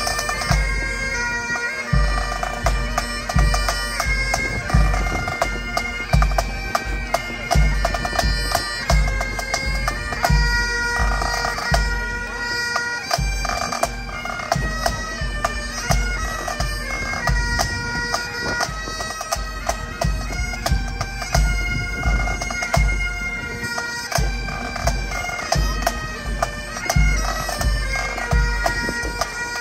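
Bagpipes playing a tune over their steady drones, with strong low thuds keeping a regular beat about twice a second.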